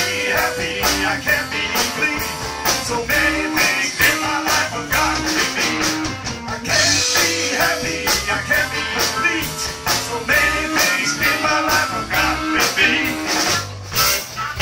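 Live electric blues band playing: electric guitar, bass guitar and drums on a steady beat, with a blues harmonica and a man singing into a microphone.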